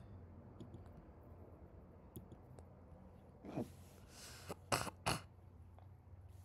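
Quiet room tone, broken in the middle by a person clearing their throat: a short voiced sound falling in pitch, then two sharp coughs about a third of a second apart.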